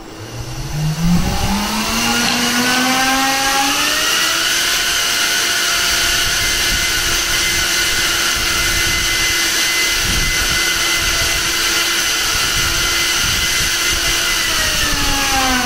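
3D-printed 80 mm electric ducted fan with a six-blade propeller, driven by a Racerstar BR2207S 2500 Kv brushless motor, running up under throttle for a thrust test: a whine rising in pitch over about four seconds, holding steady at its maximum thrust, then falling away near the end as the throttle is backed off.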